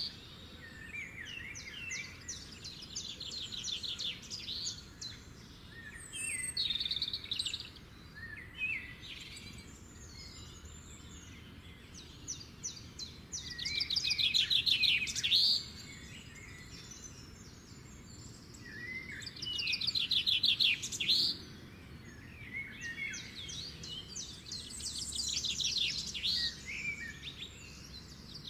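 Songbirds singing: rapid trilled phrases of a second or two, repeated with short pauses, with shorter chirps and whistled glides between them. The loudest trills come about halfway through and again about two-thirds of the way through.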